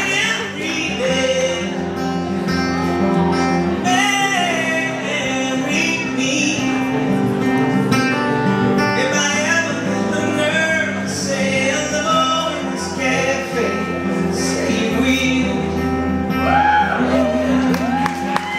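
A man singing a slow song to acoustic guitar accompaniment, performed live.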